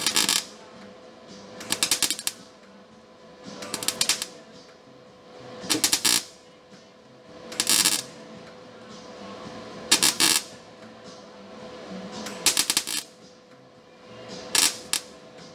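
MIG welder laying short spot welds on the sheet-steel cab corner: eight crackling bursts of about half a second each, roughly two seconds apart.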